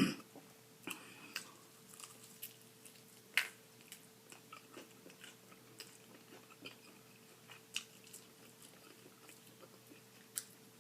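Close-miked eating: chewing with scattered crisp bites and wet mouth clicks, the sharpest crunch about three and a half seconds in, over a faint steady hum.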